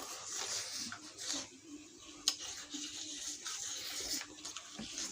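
Eating sounds at the mouth: chewing and slurping, with a sharp click a little past two seconds in.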